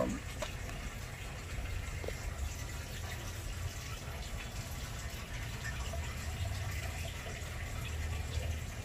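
Steady water noise, like water running or trickling into a pond, with a low rumble underneath.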